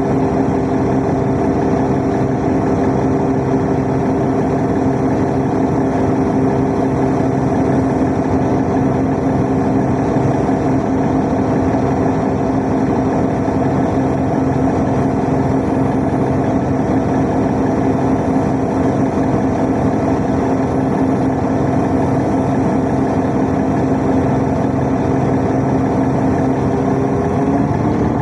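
Steady hum of a transit vehicle's motor heard from inside, with several tones held at a constant pitch throughout.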